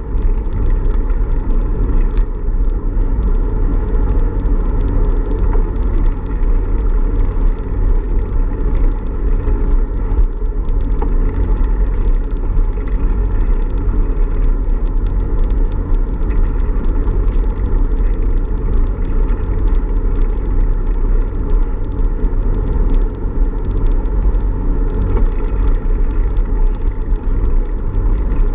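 Steady low wind rumble and road noise on the microphone of a bicycle-mounted action camera while riding.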